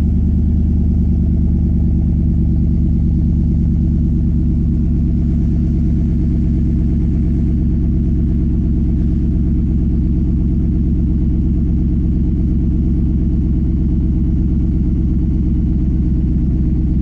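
Freshly rebuilt Hemi V8 of a Jeep SRT8 idling steadily after a cold start, warming up.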